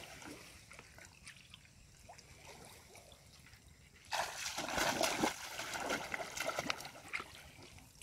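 Faint rustling of tall grass, then about four seconds in a sudden spell of splashing and sloshing as a person wades into a shallow, muddy ditch. The splashing lasts about three seconds before it dies down.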